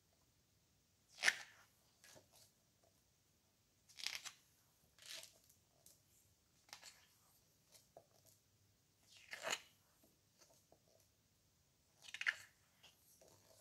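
Pages of a hardcover photobook of heavy coated paper being turned by hand: short paper swishes and rustles every few seconds, with quiet between.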